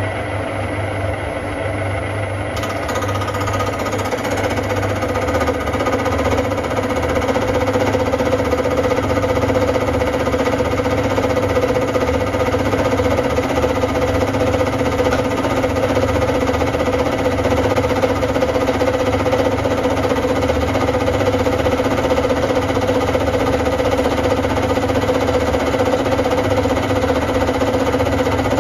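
Centec 2B horizontal milling machine running a 5/8-inch side and end cutter on its horizontal arbor at a spindle speed that is far too high, a steady whine over a rough mechanical hum that grows a little louder over the first several seconds. The test piece is fed up into the cutter for a light trial cut.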